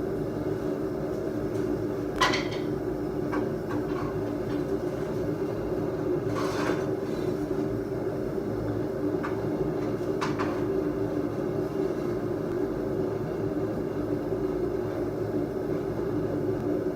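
Forge running with a steady rushing sound, with a few scattered knocks of steel or tongs, the loudest about two seconds in.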